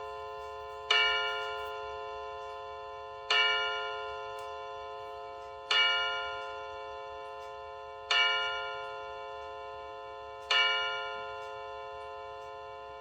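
Quartz battery clock movement's electronic chime striking the hour: the same bell tone struck again and again about every two and a half seconds, each stroke ringing out and fading before the next, over a faint low hum.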